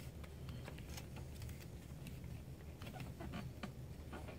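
Faint, irregular small plastic clicks and scrapes as a plastic pry tool works around a laptop screen's plastic bezel, popping its retaining clips loose, with a sharper click near the end.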